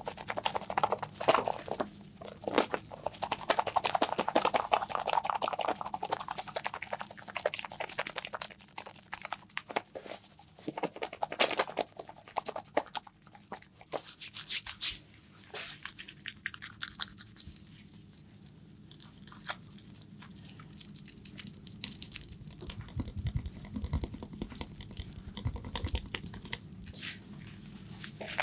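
Close-up massage sounds of hands rubbing, patting and working over skin and hair, with rapid clicks and crackles. These grow quieter about halfway through, and a few soft low thumps come near the end.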